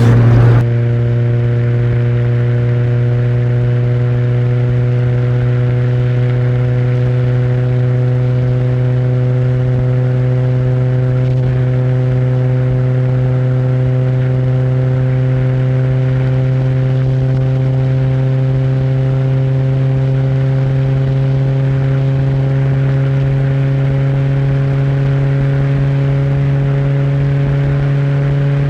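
Renault Twingo's exhaust recorded up close, a steady engine drone held at nearly constant revs, its pitch creeping slowly upward.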